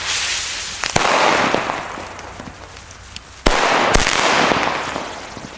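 Fireworks packed into a Pyroland Explosiv Car toy car going off: a rushing hiss, a sharp bang about a second in with a fading hiss of sparks after it, then two more sharp bangs close together past the middle, trailing off in hiss.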